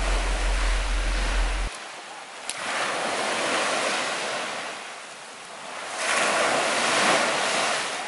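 Sea waves washing up a sandy beach, the hiss swelling and fading twice, a little over three seconds apart. A steady low rumble cuts off about two seconds in.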